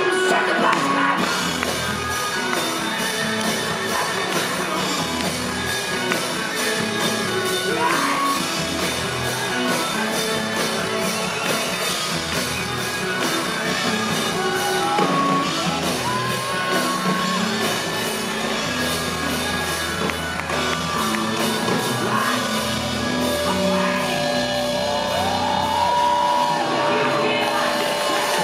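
Live rock band heard from the crowd through a festival PA: electric guitar, drums and a male lead vocal, with bending, shouted sung lines.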